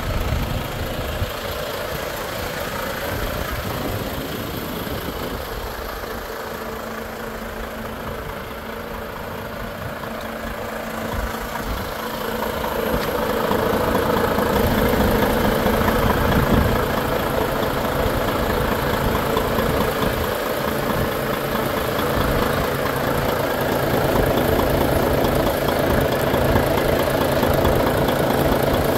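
Volvo FH 460 truck's 13-litre six-cylinder diesel idling steadily, growing louder about halfway through.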